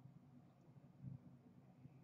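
Near silence: room tone with a faint low hum and one soft low bump about a second in.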